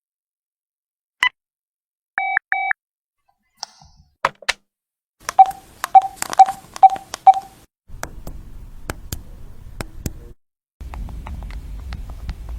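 Phone keypad buttons being pressed, each press a sharp click with a short beep, including a quick run of about six presses. In the second half a low rumbling noise runs under scattered clicks.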